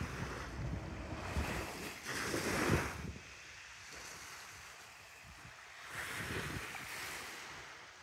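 Small waves washing onto a sandy shore, two washes swelling and fading about two seconds in and again about six seconds in. A low wind rumble on the microphone runs under the first three seconds.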